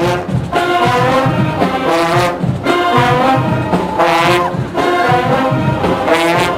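Marching band brass section playing loud held chords in short phrases, breaking between notes about every second.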